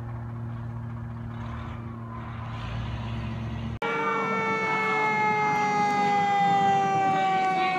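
A fire engine's engine runs with a steady low hum as the rig drives off. Then, abruptly, a fire truck's siren sounds louder, several tones together sliding slowly down in pitch.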